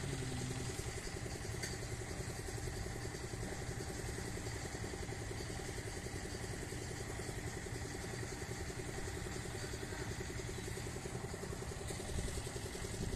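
Transformer oil filtration and filling machinery running steadily: an engine-like hum with a fast, even pulse.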